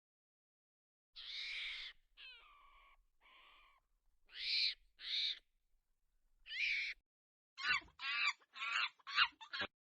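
Baby monkey giving a series of high, squeaky calls: a longer call about a second in, a few shorter ones, some falling in pitch, and a quick run of chirps near the end.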